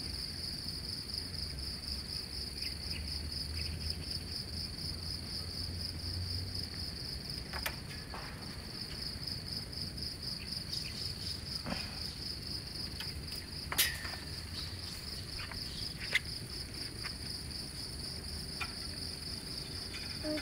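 Steady high-pitched insect chorus, a fast pulsing trill that never lets up, with a few sharp clicks or knocks; the loudest knock comes about fourteen seconds in.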